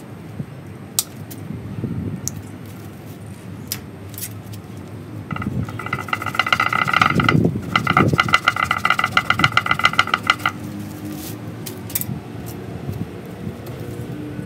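Pruning shears snipping twigs and leaves on a ficus bonsai: a few sharp clicks. For about five seconds in the middle, a louder rapid pulsing high-pitched tone over a low rumble covers them.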